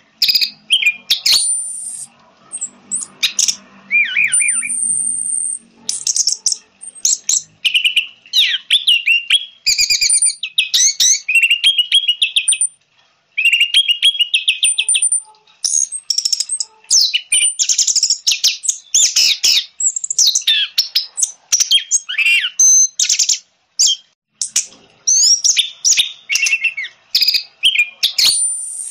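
Orange-headed thrush singing a fast, varied song of high whistles, trills and chattering phrases, almost without pause, broken by a couple of brief silences.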